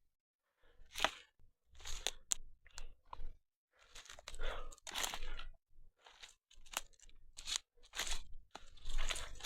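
Footsteps crunching irregularly over dry forest ground and undergrowth, about one to two steps a second.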